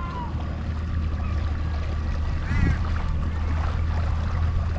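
Outboard motor of a small C-Dory cabin boat running at slow speed as the boat motors in, a steady low hum that grows a little louder as it approaches.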